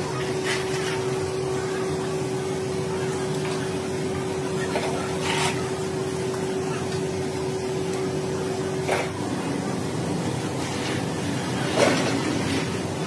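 Workshop machinery running with a steady hum that stops about nine seconds in, over a constant background of shop noise, with three sharp knocks or clanks spread through.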